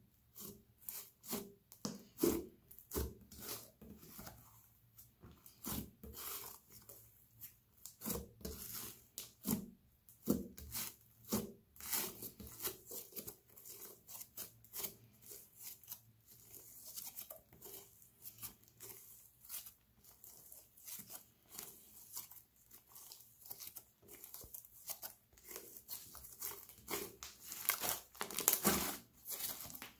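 Thick slime being kneaded, folded and stretched by hand on a stone countertop. It gives a dense, irregular run of crackles, snaps and tearing sounds as it pulls apart and its trapped air pops. The crackling is loudest near the end.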